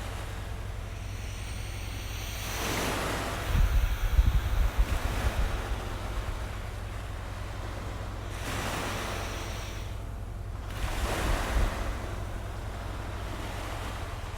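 Ocean waves washing onto shore, the surf swelling and falling back several times over a steady low rumble.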